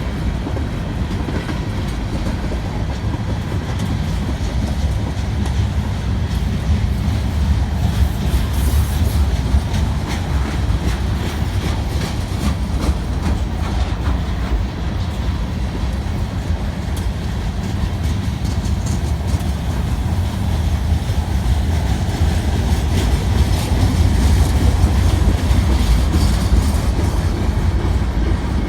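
CN freight train's cars rolling past at close range: a steady heavy rumble with the wheels clicking over the rail joints.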